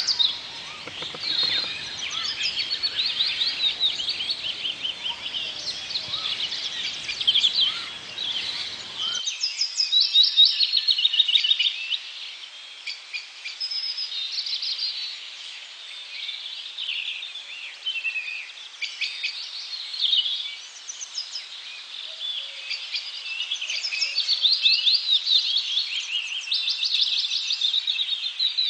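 Chorus of several birds singing and calling, with many overlapping chirps and rapid trills.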